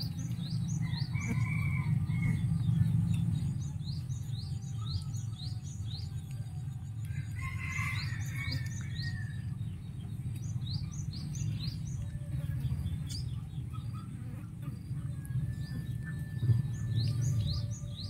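Small birds chirping in several runs of quick, high, repeated notes over a steady low outdoor rumble.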